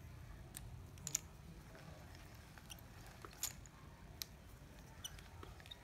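Faint handling of a small spinning fishing reel: scattered light clicks and rustles as it is turned and moved, with a few sharper clicks about a second in and again past the middle.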